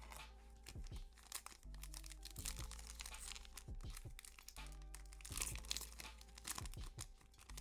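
Foil booster-pack wrapper crinkling and tearing as a Yu-Gi-Oh! card pack is opened, with steady background music underneath.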